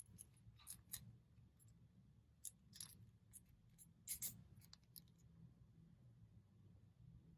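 Faint crinkles and scrapes of chocolate-egg wrappers and packaging being handled, several short sounds about a second apart, loudest a little past the middle, over a low steady hum.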